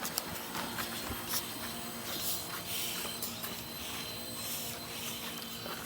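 Toy helicopter's small electric motor and rotor whirring steadily, with a few soft taps.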